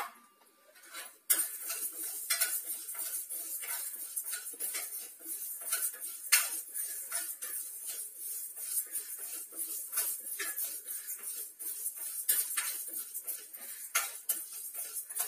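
Metal ladle scraping and clinking against a metal kadai while stirring dry split moong dal being dry-roasted, with many small clinks. It starts about a second in and goes on without a break.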